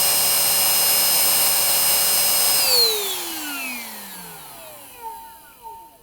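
Iris Ohyama cordless vacuum cleaner running with a steady high whine, then switched off about two and a half seconds in, its motor whine falling in pitch as it spins down. Two small knocks near the end.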